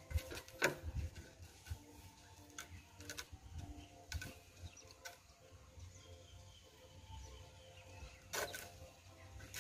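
Faint handling noises as heat-softened PVC sheet is pressed and bent by hand over a block on a board: a few light knocks and rubs, the clearest near the start, about halfway and near the end.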